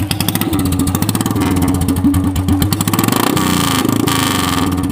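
Royal Enfield Classic 350 single-cylinder motorcycle engine running loudly, blipped once about three seconds in, the pitch rising and then settling back.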